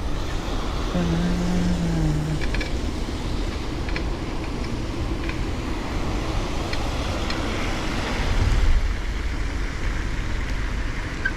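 Steady wind and road noise from riding a bicycle along a wet road in the rain, with traffic nearby; a heavy low rumble of wind on the microphone, swelling louder about eight seconds in.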